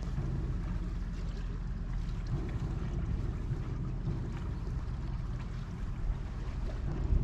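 Wind buffeting the action camera's microphone: a steady, fluttering low rumble, with a brief thump near the end.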